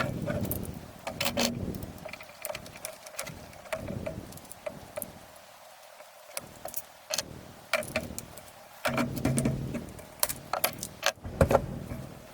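Irregular metallic clicks and knocks of a GSG-16 .22 rifle's parts being handled as it is field-stripped, the footage sped up.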